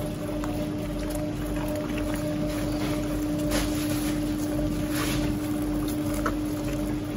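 A machine motor running with a steady hum, with a few faint clicks and knocks over it.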